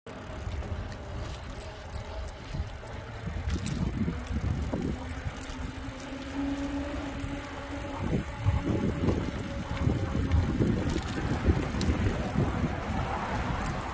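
Bicycle ridden along a concrete path: wind buffeting the microphone and a low rumble of tyres rolling, with scattered light clicks and rattles from the bike.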